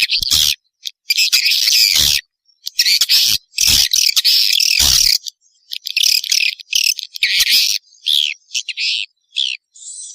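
Swiftlet calls from a swiftlet-house lure recording: loud, rapid twittering chirps in bursts of about a second, separated by short gaps.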